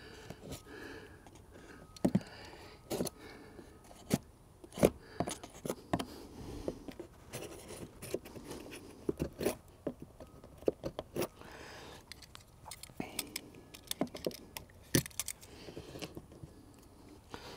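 Metal painter's multi-tool scraping and picking leftover caulk out of a butt joint in LP SmartSide engineered wood siding, making irregular sharp scrapes and clicks.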